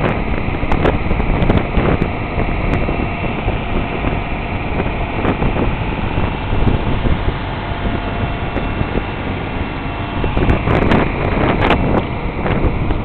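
Small fishing boat running steadily under way at sea: its engine and the rushing wake make a continuous loud noise, with wind buffeting the microphone.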